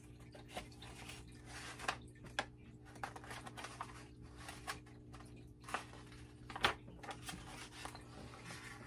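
Pages of a picture book being handled and turned: scattered soft paper rustles and clicks, with a louder one about two and a half seconds in and another near six and a half seconds, over a steady faint hum.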